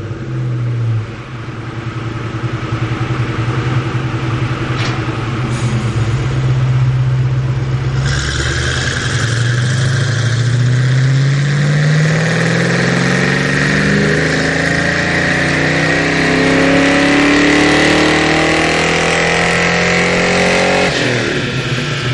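Ford 5.0 V8 Fox-body Mustang running through headers and aftermarket mufflers on a dyno. It holds a steady note for several seconds, then pulls hard with the pitch climbing steadily for about twelve seconds, and drops off sharply near the end as the throttle is released.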